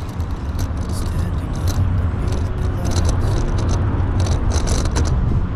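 Cycling on a paved path, heard from a camera on the moving bike: a steady low rumble of wind and road noise, with repeated short rattles and scrapes throughout.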